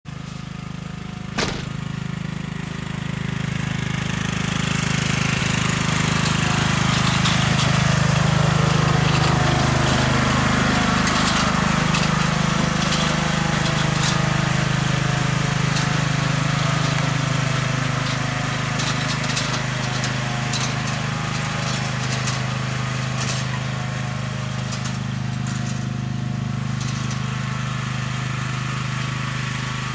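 Riding lawn mower engine running steadily as the mower drives across the lawn towing a loaded dump cart. It grows louder over the first several seconds, drops in pitch partway through, and has scattered light clicks and rattles. There is a sharp click about a second and a half in.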